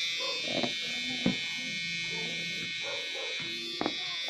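Pen-style permanent-makeup tattoo machine buzzing steadily as its needle works an eyeliner line into practice skin, with two light taps just over a second in and near the end.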